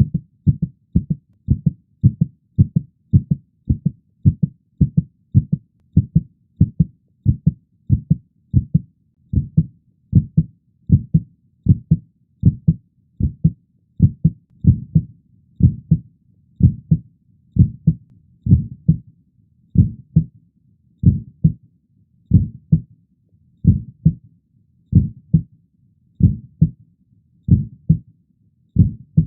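Heartbeat sound effect: a steady run of low double thumps, lub-dub, whose pace slows through the middle and quickens again near the end.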